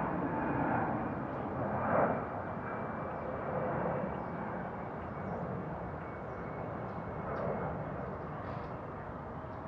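Steady outdoor rumble of distant noise with no distinct events, swelling briefly about two seconds in.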